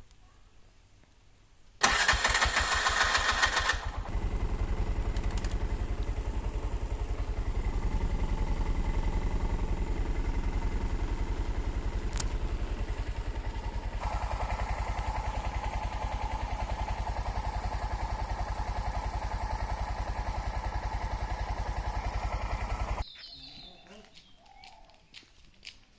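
A vehicle engine starting with a loud burst of about two seconds, then idling steadily with an even firing rhythm before it is switched off abruptly near the end.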